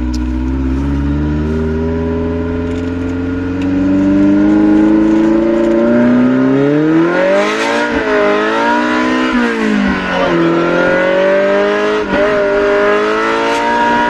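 Ferrari Mondial 3.2's V8, through a custom exhaust, heard from inside the cabin as the car accelerates. The revs climb steadily for several seconds, then drop and climb again three times in the second half with gear changes.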